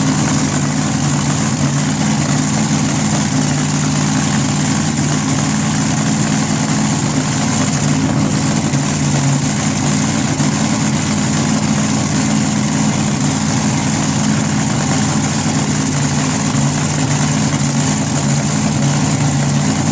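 An engine idling steadily at a constant pitch, with no revving, typical of a drag racing car or support vehicle at the strip.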